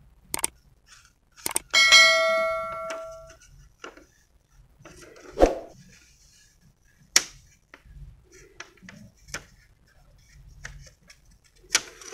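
A subscribe-button sound effect: a click, then a bell ding that rings and fades over about a second and a half. Short crackles of a thin plastic keyboard membrane sheet being handled come now and then through the rest.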